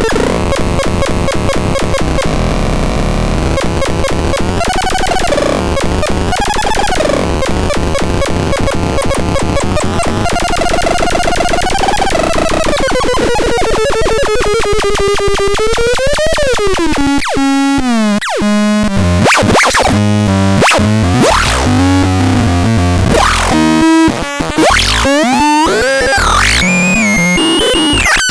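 Synthesizer making harsh, noisy electronic sounds. A dense buzzing texture with fast pulsing gives way to pitched tones that wobble and glide up and down. Near the end come choppy stepped tones that cut in and out abruptly.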